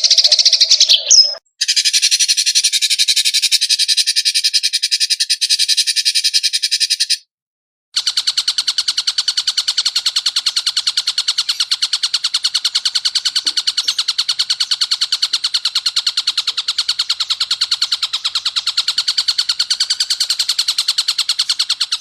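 Edited recording of an animal's fast, continuous trill of evenly repeated high notes, used as song-training material for songbirds. It comes in three spliced stretches that cut off abruptly, with a short gap of silence about seven seconds in.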